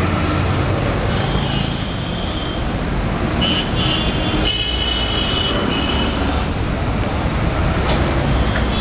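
Dense, steady city traffic noise with large diesel buses passing close by, their engines running with a low rumble.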